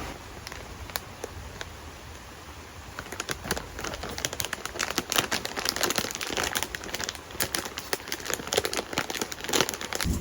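Crinkling and crackling: sparse sharp clicks at first, then a dense run of them from about three seconds in until near the end.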